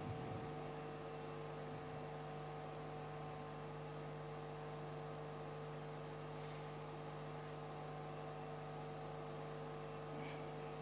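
Steady electrical mains hum with a low hiss underneath, with no speech; a faint short noise near the end.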